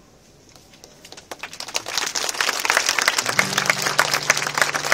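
Crowd clapping, building up from near quiet about a second in. About three seconds in, a low steady note from a musical instrument starts underneath the applause.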